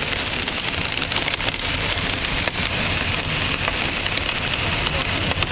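Hail and heavy rain pelting the car's roof and windshield, heard from inside the cabin: a dense, steady clatter full of sharp ticks.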